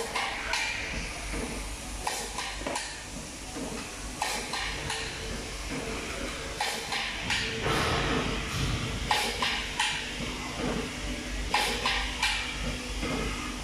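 Automatic cable tie machine working: irregular short air hisses with sharp clicks, about one every second or two, over a steady faint machine hum.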